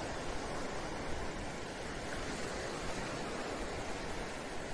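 Ocean surf as a steady, even rush of sea noise.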